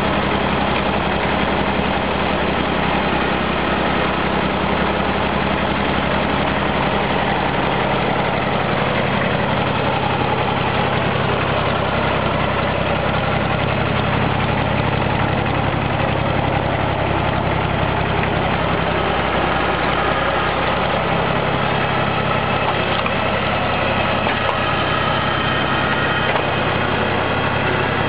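Farm tractor engine running steadily at a constant speed while it powers a hydraulic log splitter. The engine note shifts about twenty seconds in.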